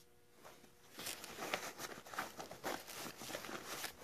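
Hands rummaging in a 5.11 Moab 10 nylon sling bag: irregular rustling and scuffing of the fabric and its contents, starting about a second in.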